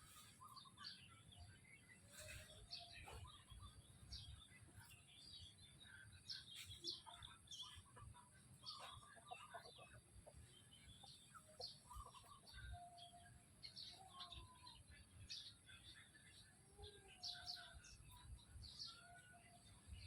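Chickens chirping and clucking faintly: many short, scattered calls from several birds.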